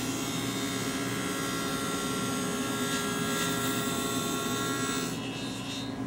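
Table saw with a 3/4-inch stacked dado blade cutting a dado across a board as the piece is fed slowly through. The cutting noise stops about five seconds in, once the board is through, leaving the saw running free.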